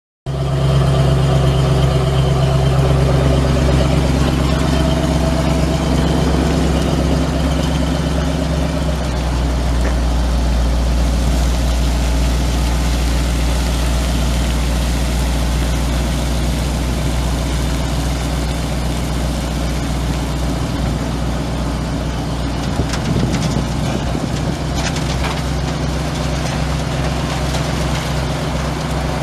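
1990 Ford F800 dump truck's 7.0L gas V8 idling steadily, its tone shifting about nine seconds in.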